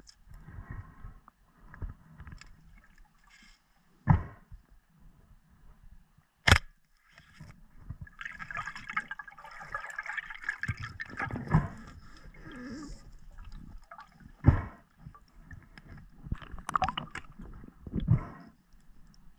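Water gurgling and sloshing as heard by an underwater camera, broken by several sharp knocks, the loudest a few seconds in and again past the middle.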